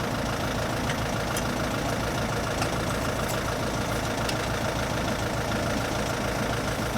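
Diesel engine of an L1-345 compact tractor running steadily, with a regular low throb.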